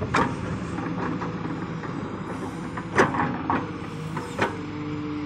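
Tata Hitachi hydraulic excavator running under load with a steady diesel hum, broken by four sharp metallic clanks from the bucket and arm as it digs and pushes soil. A steady whine underneath drops to a lower pitch after the last clank, near the end.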